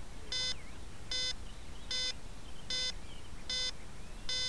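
Electronic beeper on the downed RC model airplane giving short, even beeps, one about every 0.8 seconds.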